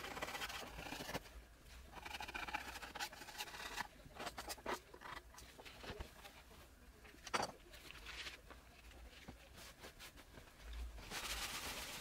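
Rubber-gloved hand brushing and scraping dry debris across the floor at the base of a wooden wall, in short scratchy strokes with a few clicks. Near the end, a cloth mitt rubs steadily over the wooden wall.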